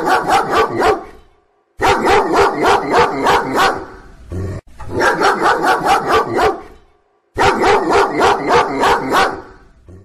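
Recorded dog barking played through the loudspeaker of a solar animal and bird repeller, used to scare wild animals and birds from crops. The barking comes in four runs of rapid barks, about four a second, with short silent gaps between the runs.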